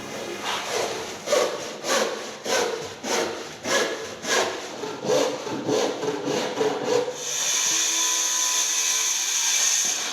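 Handsaw cutting timber in regular back-and-forth strokes, about two a second. About seven seconds in, the strokes give way to a steadier, continuous sound.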